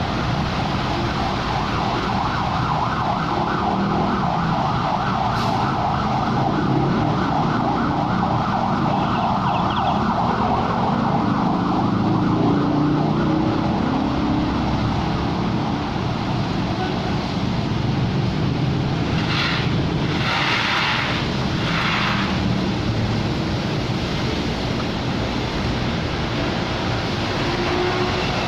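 A 2015 Honda Accord's 3.5-litre V6 running steadily with a misfire on cylinders 1 to 3, caused by the rear camshaft's timing being out of line from the timing belt. A few short hisses come about two-thirds of the way through.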